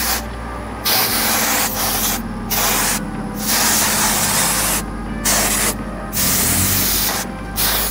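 Aerosol can of Penosil polyurethane foam remover spraying onto car window glass in a series of short hisses, about six bursts with brief pauses between.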